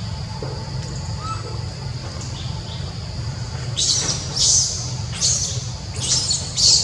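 Baby long-tailed macaque giving about five shrill, high-pitched screams in quick succession, starting a little past halfway, over a steady high hum.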